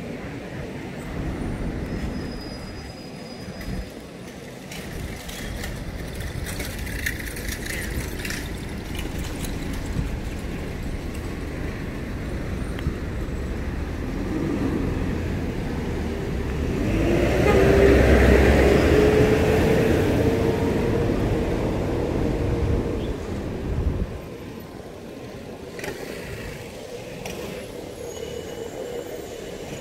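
City street traffic with a steady rumble. A little past halfway a vehicle passes close by, the loudest moment, with a slowly rising whine from its motor. The low rumble falls away sharply about four-fifths of the way in.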